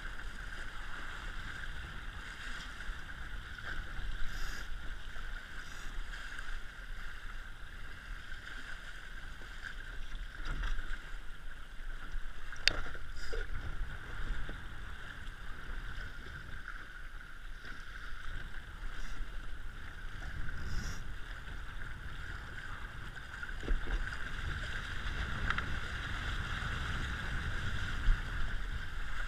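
Water rushing and slapping against the hull of an RS100 sailing dinghy under way, with low wind rumble and an occasional knock from the boat's fittings, one sharp about halfway through.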